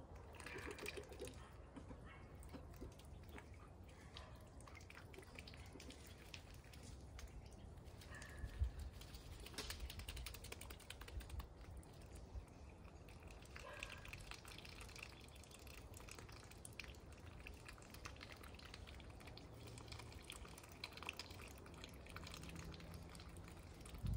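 Faint scattered drips and small splashes of ducks dabbling in shallow muddy puddles and water pans, with one louder knock about eight and a half seconds in.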